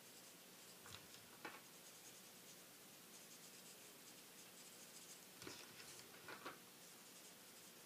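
Faint scratching of a felt-tip marker colouring on paper, with a few short, slightly louder strokes about a second in and again from about five and a half to six and a half seconds in.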